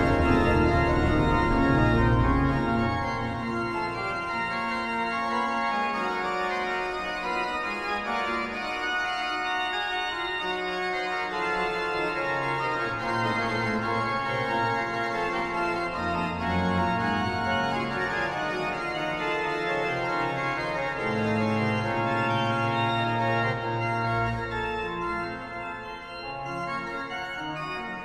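Pipe organ music: held chords that change every second or two, louder in the first few seconds.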